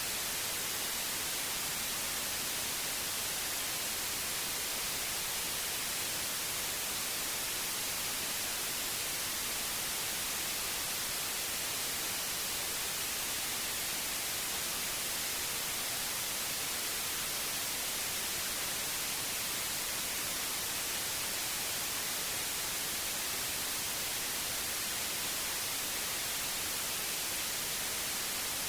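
Synthetic white noise: an even, steady hiss with most of its energy in the high frequencies.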